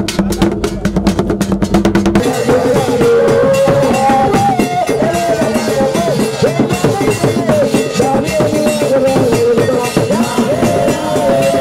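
Traditional drumming, carried drums beaten in quick strokes, with music over it. About two seconds in, a steady low drone cuts off abruptly and a wavering melody comes in above the drums.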